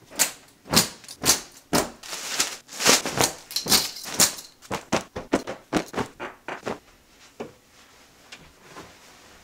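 Clothes on hangers being handled and dropped onto a bed: an irregular run of fabric rustles and sharp hanger clacks, coming quickly at first and thinning out after about seven seconds.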